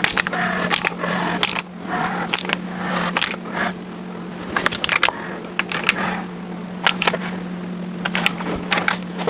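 Hand work on a small-block Ford engine during piston and rod installation: irregular sharp metallic clicks, light taps and scrapes from tools and parts. A steady low hum runs underneath.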